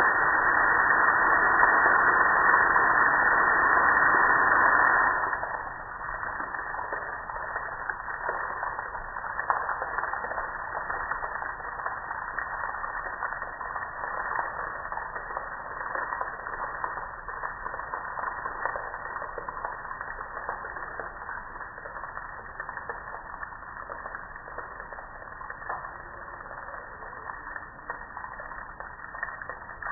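Car wash spray wand hissing as it sprays water onto a metal gas grill, loud at first; about five seconds in it drops to a quieter hiss with water splattering and pattering on the grill.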